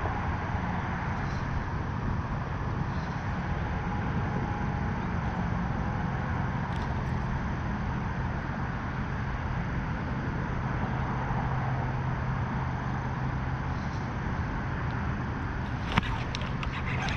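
A steady low hum over an even wash of outdoor noise, with a single sharp click near the end.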